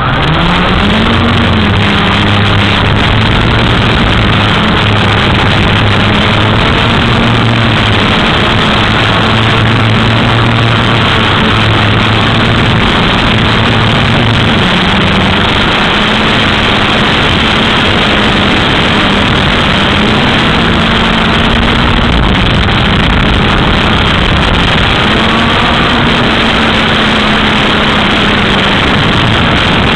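Quadcopter motors spinning Gemfan 6045 propellers, picked up by the onboard camera: a loud buzzing drone with rushing prop wash. It starts suddenly, rising in pitch as it throttles up to lift off, then wavers up and down in pitch with the throttle through the flight.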